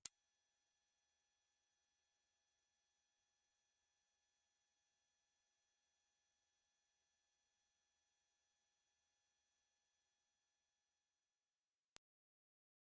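A single, very high-pitched electronic tone: a pure sine wave held steady for about twelve seconds, fading out just before it stops.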